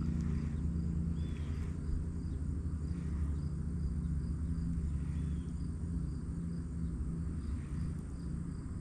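Outdoor ambience: a steady low rumble underneath, with insects chirping in a faint regular pulse about twice a second and a couple of short bird calls.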